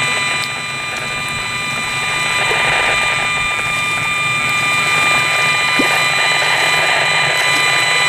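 HF 59B RF meter's loudspeaker playing the cell-tower signals it picks up as a steady, rattling buzz, with several high steady tones over it.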